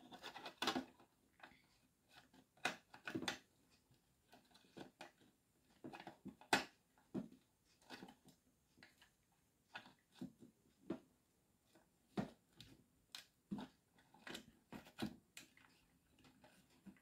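Scattered light clicks and knocks of plastic as the base of an Aurora electric kettle is turned and pressed onto the kettle body to seat it during reassembly.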